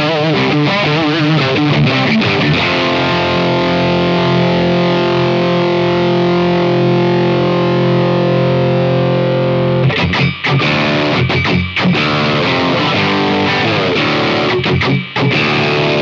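Overdriven electric guitar played through a DSM Humboldt Simplifier MK2 preamp on its Marshall amp voicing. A few strummed chords lead into one long chord left ringing for several seconds, then about halfway through come short, choppy chords with stops between them, cut off sharply at the end.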